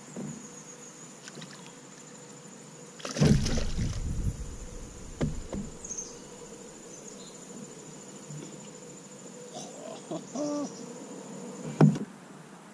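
Steady high insect drone over the pond. About three seconds in there is a loud burst of splashing and handling noise as a hooked fish is pulled from the water beside the kayak, with a smaller splash a couple of seconds later.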